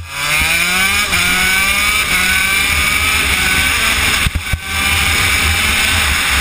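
Shifter kart's Honda CR80 single-cylinder two-stroke engine at full throttle, revs climbing from low, with a shift about a second in and a long pull up to high revs. A brief lift of the throttle comes about four and a half seconds in, then the engine is held at high revs.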